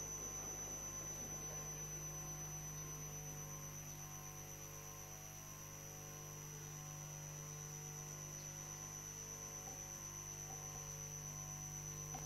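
Steady electrical hum with a thin high whine above it. Faint hall murmur can be heard in the first second or two.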